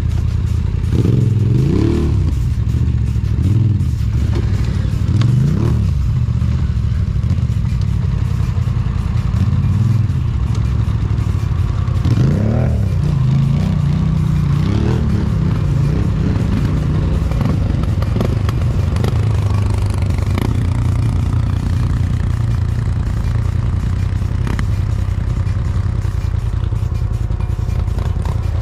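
Quad-bike (ATV) engines running with a steady low rumble. The throttle is opened in short bursts, the pitch rising and falling, several times in the first six seconds and again around twelve to fifteen seconds in.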